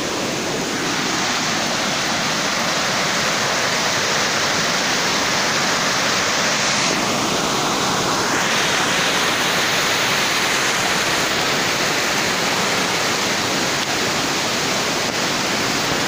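Waterfall: water rushing steadily over a rocky cascade, a constant, unbroken roar of white water close by.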